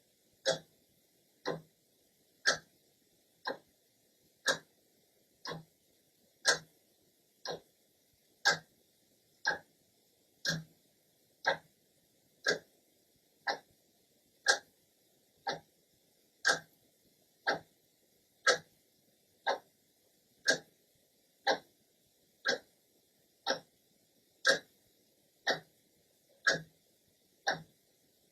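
Clock second hand ticking steadily once a second, the ticks alternating louder and softer in a tick-tock pattern.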